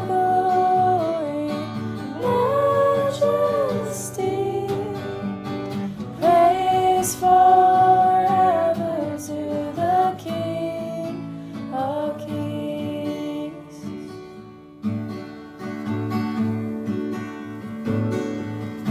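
Song with acoustic guitar accompaniment and a sung melody of long held notes; the voice thins out in the last several seconds, leaving mostly the guitar.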